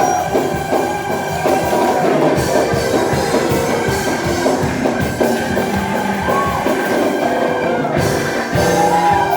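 Live church praise music: a band with drum kit and held keyboard chords, with voices singing along over it.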